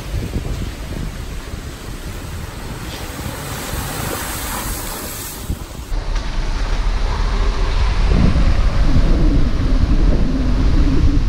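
Wind buffeting the microphone over the running of a Subaru Forester's engine on a sandy off-road track. About six seconds in the sound cuts to a louder, deeper rumble, with the engine note rising and falling as the Forester drives on.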